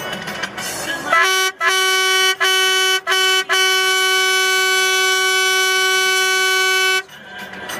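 A vehicle horn honks four short toots and then one long steady blast lasting about three and a half seconds, all on a single pitch.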